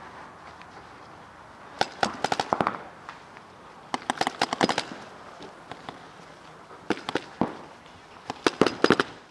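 Paintball markers firing in four quick strings of rapid shots, each string a fast volley of sharp pops lasting under a second.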